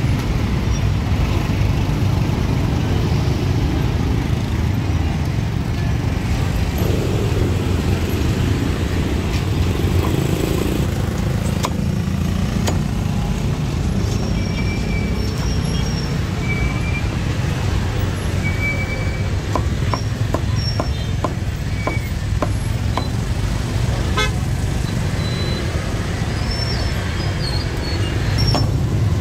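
Steady street traffic rumble from passing cars and motorbikes, with short high-pitched toots through the middle and a quick run of sharp knocks about two-thirds of the way through.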